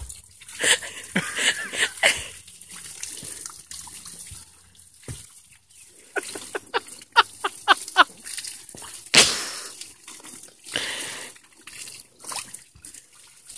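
A jet of water from a hose spraying and splashing onto a horse's head and chest and the wet ground, with irregular sudden splashes. About six seconds in comes a quick run of about eight short pitched sounds, and a sharp splash about nine seconds in is the loudest moment.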